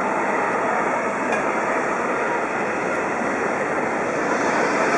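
Steady jet airliner engine noise, an even rushing sound that holds level without rising or falling.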